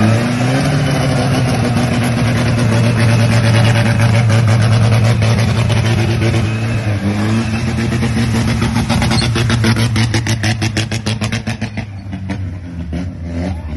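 A compact SUV's engine held at high revs as it ploughs through a flooded ditch, its tyres churning and splashing water and mud. About eight seconds in the engine note starts pulsing rapidly, and it falls away near the end.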